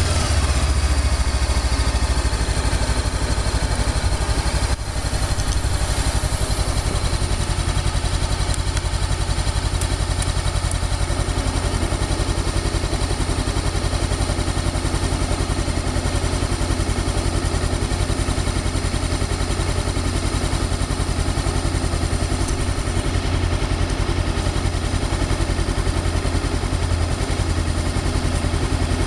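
Motorcycle engine running steadily with a low, pulsing throb, with a brief dip about five seconds in.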